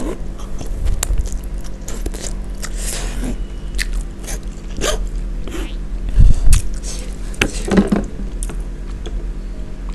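Close-miked eating of instant fried noodles: slurping and wet chewing with many small mouth clicks. A couple of heavy low thumps come a little after six seconds, then drinking from a plastic jug near the end.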